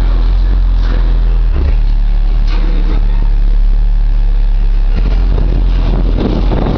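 Car audio subwoofers, Fi BTL N2s, playing very loud sustained deep bass notes, heard from inside the moving car; the low note shifts briefly about one and a half seconds in and again about five seconds in.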